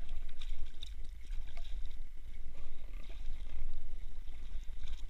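Light water splashing and rustling as a hooked pike thrashes at the surface and is scooped into a landing net beside the boat, over a steady low rumble.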